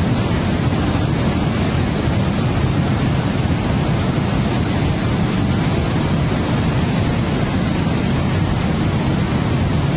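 Fast floodwater rushing, a loud steady roar with no break.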